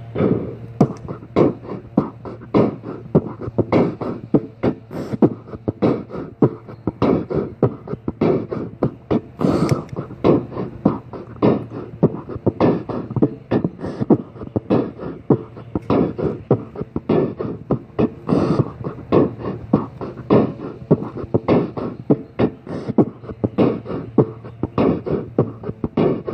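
A beatboxed drum pattern in 15/8, captured on a looper and repeating steadily as a loop of vocal percussion hits.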